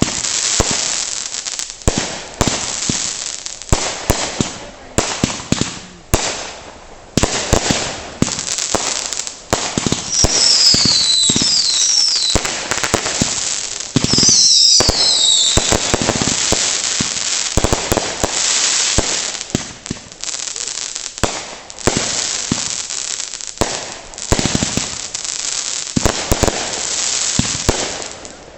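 Consumer fireworks going off without a break: rapid bangs and pops over a steady crackling hiss. Clusters of short, falling whistles come about ten and fourteen seconds in.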